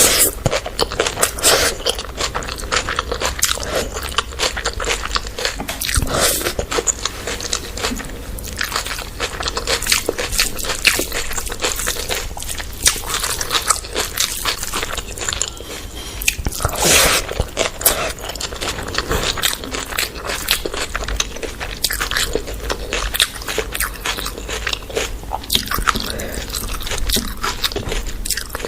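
Close-up eating sounds: a person biting and chewing fried chicken, with repeated crunching and wet mouth noises.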